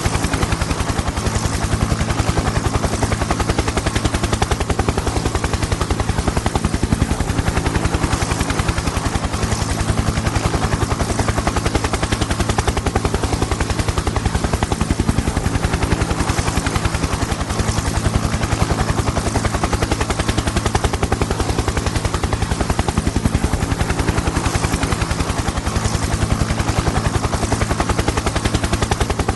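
Helicopter with its rotor beating in a fast, even chop over a steady low drone.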